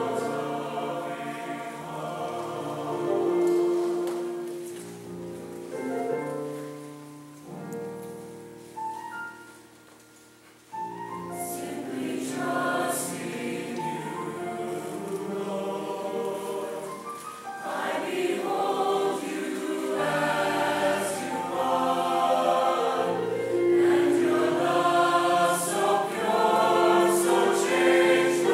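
Mixed choir of young voices singing a slow choral piece. It dies away almost to silence about ten seconds in, comes back in abruptly, and swells louder through the second half.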